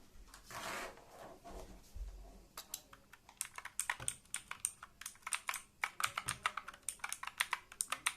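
Walton KM02 mechanical keyboard with clicky blue switches being typed on: rapid, irregular clicky keystrokes starting about two and a half seconds in, after a brief rustle near the start.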